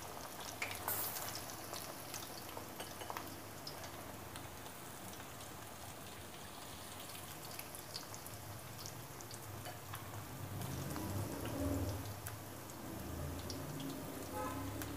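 Batter-coated chicken pieces deep-frying in hot oil: a faint, steady sizzle with scattered crackles and pops.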